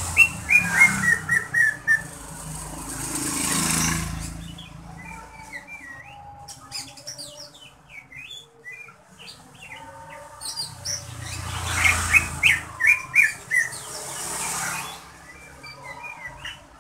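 Caged greater green leafbird (cucak ijo) singing: a fast run of sharp chirps at the start and another about twelve seconds in, with scattered shorter calls between. A broad rushing noise swells and fades twice.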